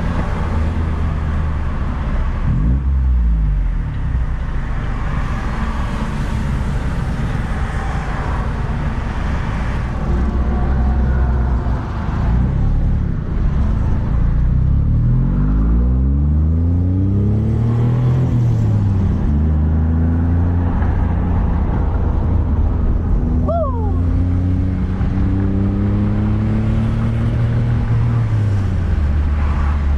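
Perodua Kenari's three-cylinder engine pulling hard through the gears, heard through an open window, its deep note from a newly fitted aftermarket exhaust. The engine note climbs and drops several times as it revs up and shifts.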